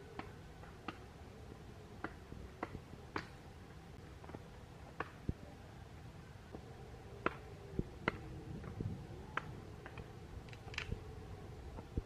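A machete chopping at a wooden stake: sharp single knocks at an irregular pace, about twenty in all, some louder than others.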